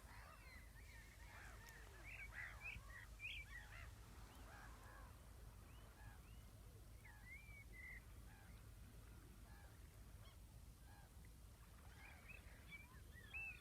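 A flock of birds calling at a distance, many short overlapping honking calls, thickest in the first few seconds and again near the end, over a faint low steady rumble.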